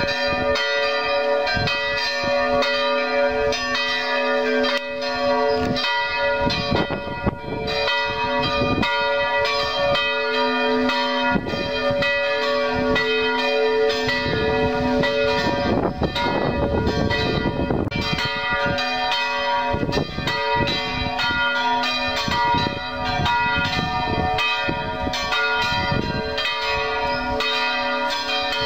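Church bells pealing: several bells struck over and over, their tones ringing on and overlapping.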